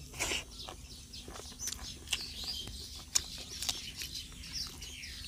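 Birds chirping and twittering throughout, mixed with a few sharp smacking clicks from people eating curry and rice with their hands.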